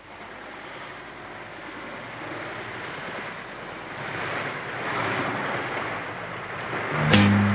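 A rushing, surf-like noise that swells and ebbs, laid over the picture as a soundtrack. About seven seconds in, background music starts with strong, bass-heavy strikes about two a second.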